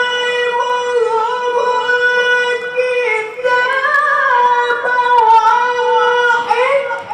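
A male Quran reciter in melodic tilawah style holds one long, high note in a single breath for about six seconds, ornamenting it with small turns and a brief rise in the middle before releasing it near the end.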